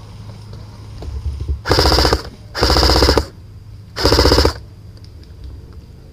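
Airsoft rifle firing three short full-auto bursts of about half a second each, the last one about a second after the second.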